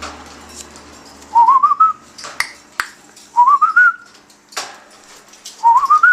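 Pet cockatiel giving its laugh-like call: three runs of three or four short whistled notes, each run climbing in pitch, about two seconds apart. A few sharp clicks fall between the runs.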